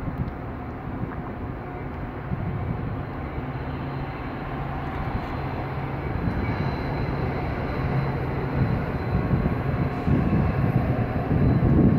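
Metra diesel locomotive's engine running as it passes, a steady low drone that grows louder.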